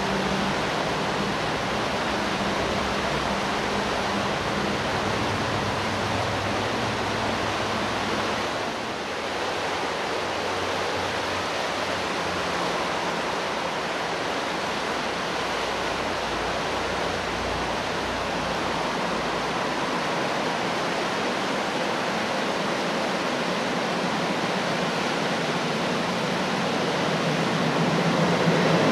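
Steady rush of a fast mountain river over rapids. Near the end a red metre-gauge BVZ electric train's running noise swells as it approaches.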